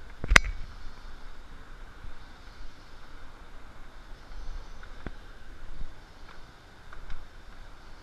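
Low steady rumble on a handheld camera's microphone while walking a rainforest trail, with one sharp knock about half a second in and a few fainter clicks later.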